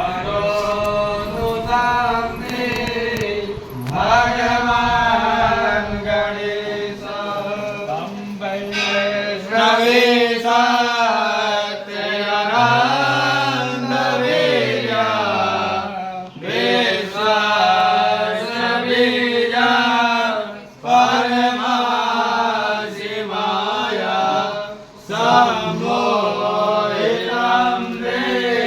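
Hindu devotional hymn chanted in melodic sung phrases over a steady drone, with short breaks between lines.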